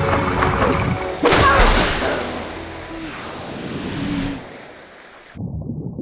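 Cartoon soundtrack: music, then about a second in a sudden loud water-like rush that fades away over about three seconds. Near the end it cuts to a duller underwater ambience.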